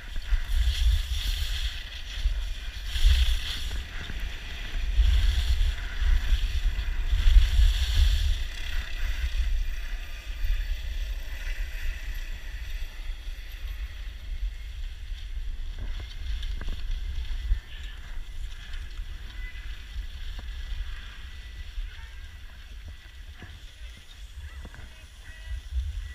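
Wind buffeting the camera microphone while skis hiss over packed snow in rhythmic turns, loud in the first third and dying down as the skier slows. A few sharp clicks follow in the second half.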